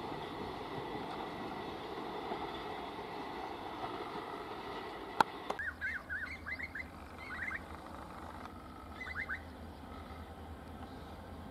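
The rumble of a passenger train receding along the track, fading; then a sharp click, followed by a bird calling in quick rising-and-falling chirps, in two bursts, over a low steady hum.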